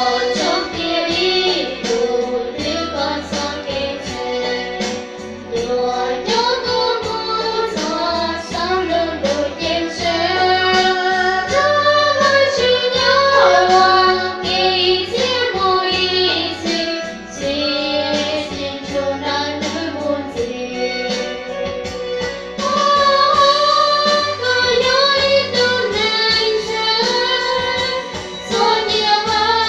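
Two young women singing a Hmong song together through handheld microphones over a backing track with a steady beat and bass.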